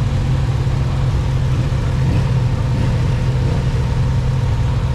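Kawasaki Z900RS's 948 cc inline-four engine, with its four-into-one exhaust, idling steadily while the bike stands still.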